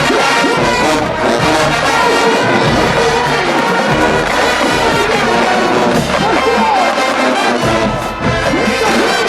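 HBCU marching band playing loud, brass-heavy music.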